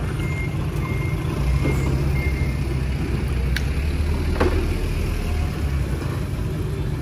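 A vehicle's engine running with a low, steady rumble and its reversing beeper sounding about twice a second, the beeps stopping a couple of seconds in. The engine grows louder from about a second and a half in, and two sharp knocks come near the middle.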